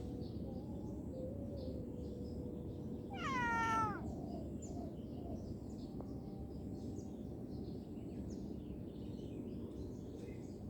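A cat meows once, a short call that falls in pitch, about three seconds in, over a steady low background noise.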